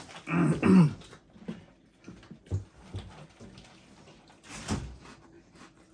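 A person's short wordless vocal sound in the first second, pitched and wavering, followed by faint clicks and a brief rustling scrape about four and a half seconds in.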